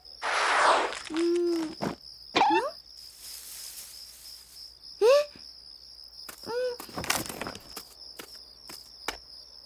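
Cartoon forest ambience of crickets chirping steadily. Over it comes a whoosh in the first second, then several short wordless character vocalizations, grunts and exclamations, the loudest about five seconds in, and a brief rustle about seven seconds in.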